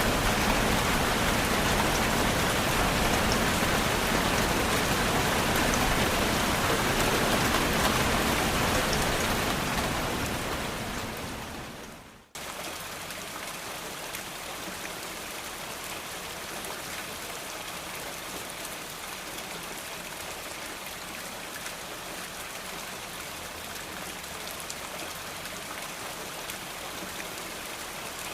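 Steady heavy rain, fading out about ten seconds in; after a brief gap a quieter, lighter rain takes over.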